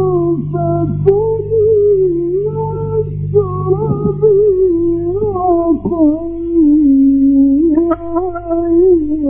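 A solo male Quran reciter chants in the ornamented Egyptian mujawwad style, drawing out a long melismatic note that winds up and down in pitch without a break. A steady low electrical hum from the old recording sits underneath and fades out about halfway through.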